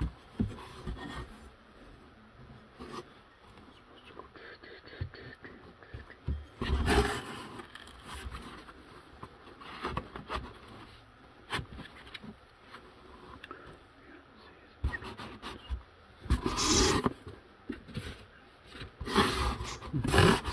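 Handling noise from aluminium extrusion rails and bagged parts being shifted in a foam-lined cardboard box: irregular scraping, rustling and sharp clicks, with louder bursts about seven seconds in and near the end.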